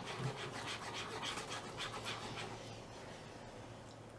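Forks scraping and clicking on plates as children mash and stir cake with frosting, faint and irregular, growing quieter toward the end.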